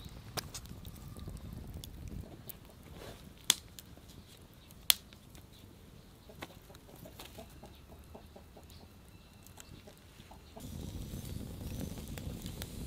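Wood fire crackling, with two sharp loud pops a few seconds in and smaller ticks between. Near the end a low rush of burning gets louder as the flames take hold.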